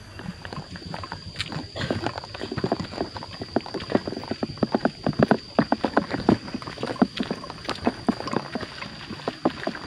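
Footsteps of people walking in sandals along a dirt path: irregular slaps and scuffs, several a second. A steady high insect drone runs behind them.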